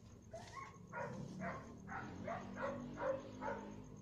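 A dog barking repeatedly in short barks, about two or three a second.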